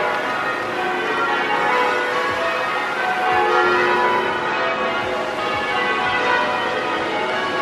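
Tower bells of Perth's Bell Tower (the Swan Bells) being rung in change ringing: many bells sounding in continuous overlapping rounds.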